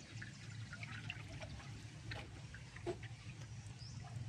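Faint trickling and lapping of floodwater, with scattered small drips and ticks over a steady low hum.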